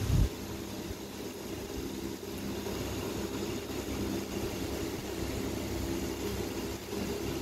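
A steady low mechanical hum over a faint hiss, like a fan or motor running, with one short low thump right at the start.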